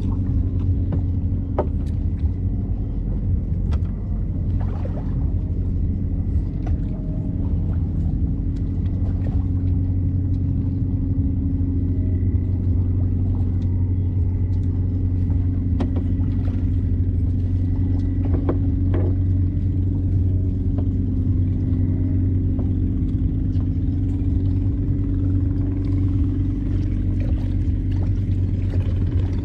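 An engine running steadily at a constant low pitch, with a few faint clicks over it.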